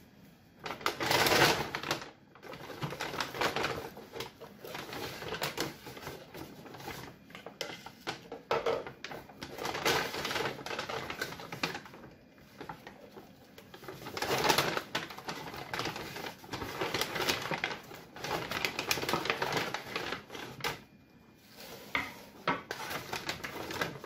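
Brown paper shopping bag rustling and crinkling as it is handled and opened, in irregular bursts of crackle with short pauses between them.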